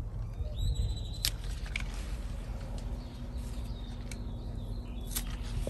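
Scissors snipping green onion stalks: two sharp snips, about a second in and near the end. A bird gives a short whistle just before the first snip, over a low steady rumble.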